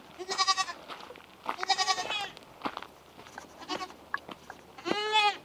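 French Alpine kids bleating: four wavering calls, each about half a second to a second long, the third fainter than the others.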